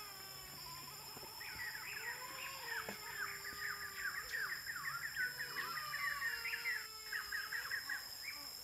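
Chickens calling: quick runs of chirps and clucks, over a steady high whine.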